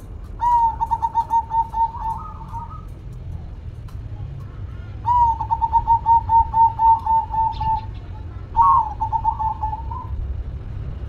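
Zebra dove (perkutut) cooing: three bouts of rapid, evenly spaced staccato coo notes, about six a second, each bout ending on a slightly higher note.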